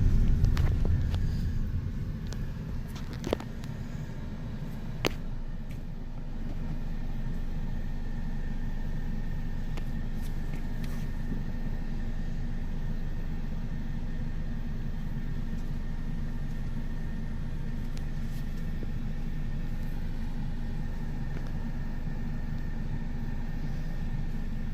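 Steady low rumble of a car driving slowly, heard from inside the cabin, with two sharp clicks a few seconds in.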